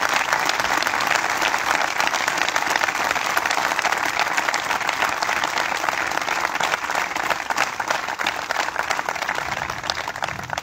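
A crowd applauding steadily, dying away at the end.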